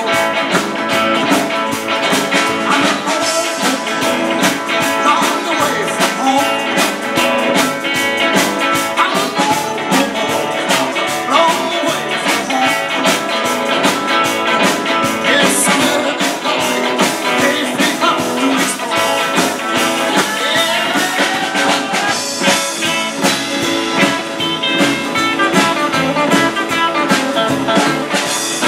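Live band playing an instrumental blues / rock-and-roll passage, with upright double bass and guitar over a steady beat.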